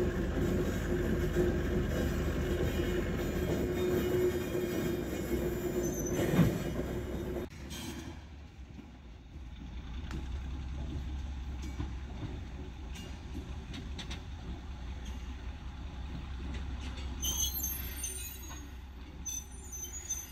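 GE 50-ton diesel switcher locomotive running as it moves cars slowly through the yard, with a steady tone over the engine rumble and a single knock about six seconds in. About a third of the way in it drops abruptly to a quieter low engine rumble.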